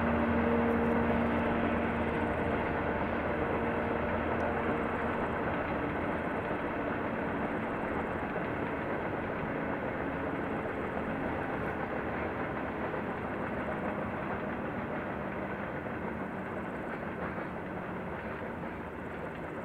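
Diesel-hauled freight train rolling past, its wagons' wheels on the rails making a steady noise that slowly fades. A low steady tone dies away in the first couple of seconds.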